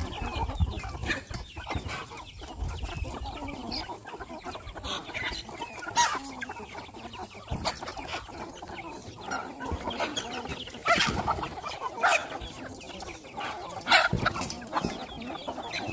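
A large flock of chickens and roosters clucking and calling, with some louder single calls standing out now and then.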